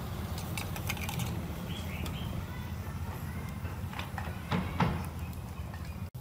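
Cooking clatter at a street-food stall: scattered light clicks and knocks, with two louder knocks about three-quarters through, over a steady low hum.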